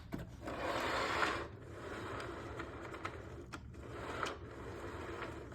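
Handling noise: rustling and scraping of parts being worked by hand, with a few light clicks, louder in the first second and a half.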